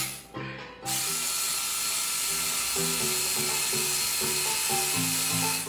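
Hydraulic chainsaw running steadily as it cuts into a wood carving, under background music with stepping bass notes. The saw sound dips out briefly right at the start.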